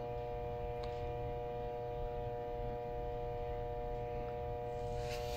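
Steady electrical mains hum: a low drone with several steady tones above it, unchanging throughout.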